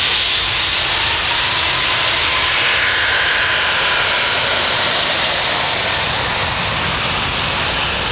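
Airbus A380's four jet engines at takeoff power: a loud, steady jet noise.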